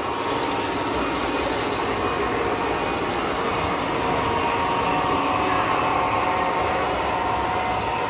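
O-scale model diesel freight train running past on its track, a steady rolling of metal wheels on rail with a motor hum, growing a little louder midway as it comes closest.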